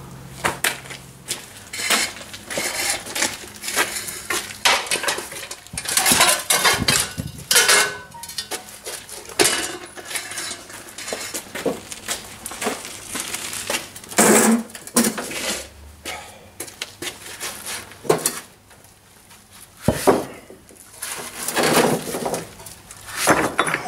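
Rough stones being picked off a pile and dropped into a steel wheelbarrow: irregular clattering of rock on rock and clanks of rock on the metal tray, coming in clusters with short pauses between.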